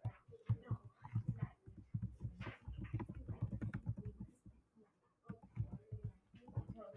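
Computer keyboard typing: a run of quick key clicks, with a short pause about five seconds in.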